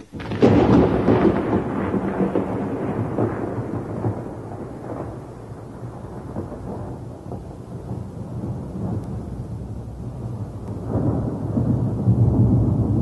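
Thunder over rain: a loud crack about half a second in that rumbles away over several seconds, with a second rumble swelling near the end.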